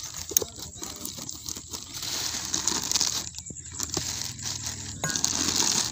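Plastic bag and cardboard box crinkling and rustling as the packaging of a new engine part is handled and opened, with a sharp click about a third of a second in.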